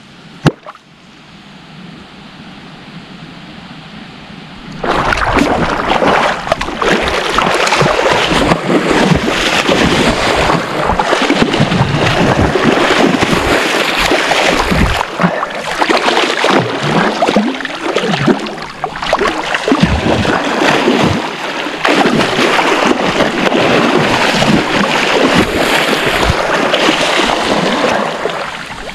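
A hooked wels catfish thrashing and splashing hard in shallow water close to the bank, fought on the rod. Loud continuous churning and splashing that starts suddenly about five seconds in and eases off near the end.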